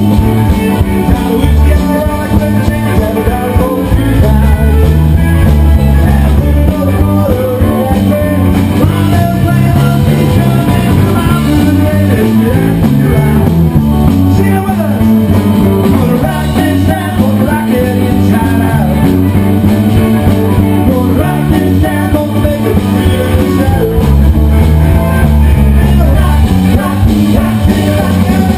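Live rock-and-roll band playing loudly, with electric guitar, drums, a strong bass line and a woman singing.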